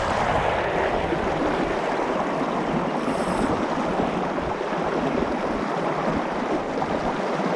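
Steady rush of flowing river water close to the microphone.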